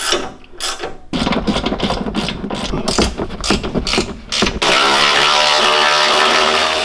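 Hand ratchet clicking rapidly as the sway bar end link nut is spun off. About four and a half seconds in, a cordless power tool's motor starts and runs steadily.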